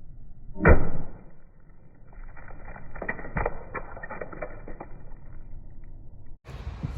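Slowed-down sledgehammer blow on an iPhone 8 Plus, heard muffled and deep: one heavy thud about a second in, then a few seconds of scattered crackling and clicking as the phone's glass and parts break.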